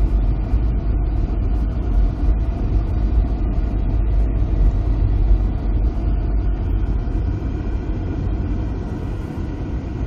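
Car driving along a concrete road: a loud, steady low rumble of tyre and wind noise, easing off a little near the end.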